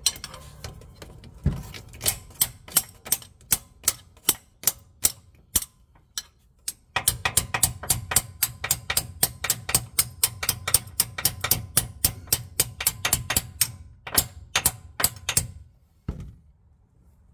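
Hammer striking a loosened 18 mm steel bolt with a wrench on its head, metal on metal, about three blows a second, with a brief pause about six seconds in. The blows are driving the bolt out past a hidden retaining clip that has to be forced.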